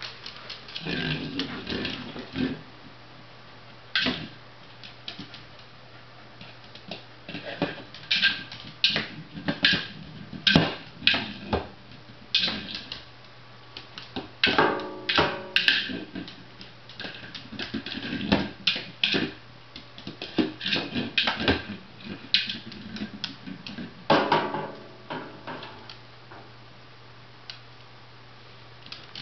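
A dog bumping and shoving a hollow hard-plastic Jolly Egg across a tile floor: irregular knocks, clatters and scrapes of the egg, in bursts with short lulls between, over a steady low hum.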